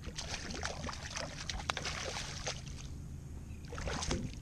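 Hooked speckled trout thrashing and splashing at the water's surface beside a kayak as it is pulled in: a run of irregular splashes, then another burst of splashing near the end.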